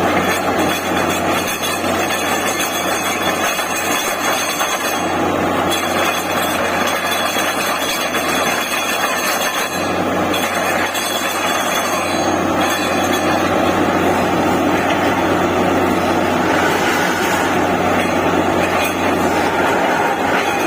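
Borewell drilling rig running steadily under load: a loud, continuous mechanical din with a steady low hum underneath.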